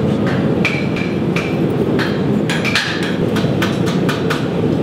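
Hand hammers striking hot steel on anvils, several smiths working at once: an irregular run of sharp clanks, some with a short ring, over a steady low rush.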